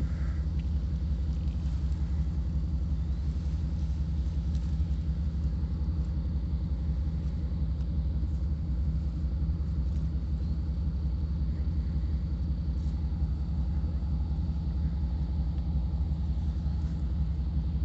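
Steady low rumble at an even level, with no distinct event standing out.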